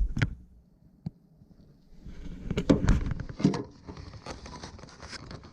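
Handling noise as work goes on at the furnace: a few sharp clicks, then about two seconds in a run of knocks and rattling rustle, loudest around the middle.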